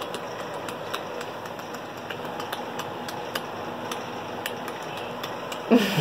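Domestic cat purring steadily while being rubbed, with scattered light clicks from handling on the bedspread.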